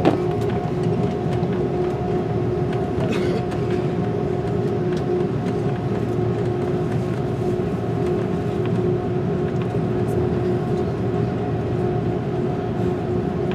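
Airbus A330 airliner cabin noise heard from inside the cabin: a steady low rumble with a constant engine hum.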